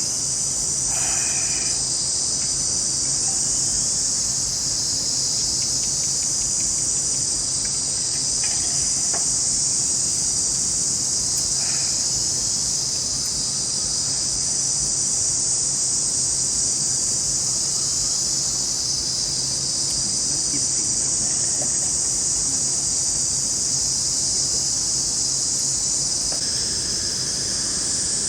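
Dense chorus of forest insects, a continuous high-pitched shrill that holds steady throughout, with a faint low hum underneath.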